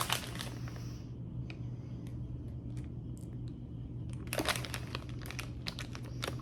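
Plastic snack wrapper, a bag of M&Ms, crinkling as it is handled and opened. There is a short burst at the start, a lull of about three seconds with a few faint ticks, then dense crinkling resumes near the end.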